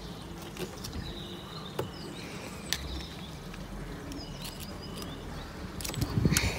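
Wire strippers stripping the insulation off electrical cable cores: a few faint sharp snips and clicks, with birds chirping faintly in the background and a louder rustle of handling near the end.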